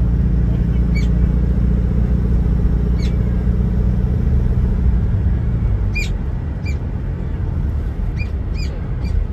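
Car driving, a steady low road rumble that eases a little about halfway through. Short, high chirps sound over it every second or two, more often near the end.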